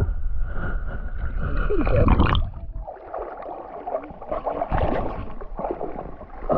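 Water sloshing and gurgling around a small boat, with a low rumble. It is louder for the first two and a half seconds, then quieter.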